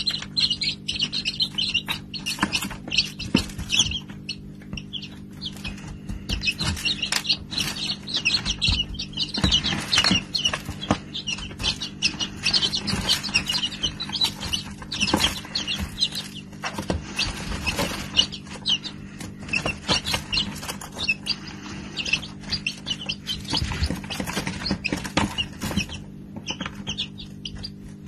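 Baby chicks peeping in quick high chirps while pecking grain, with many sharp taps of beaks on a metal tin lid and a hard surface. A steady low hum runs underneath.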